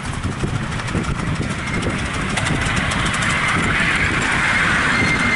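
Miniature LNER 4472 Flying Scotsman steam locomotive and its passenger carriages passing close: a low rumble of wheels on the track under a hiss of steam that swells and grows louder as it draws near. A faint steady high tone comes in near the end.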